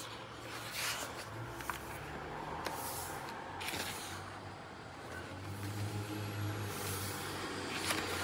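Pages of a large hardcover art book being turned by hand: several short paper swishes and rustles as the leaves flip and are smoothed down. A low hum sits underneath, strongest a little past the middle.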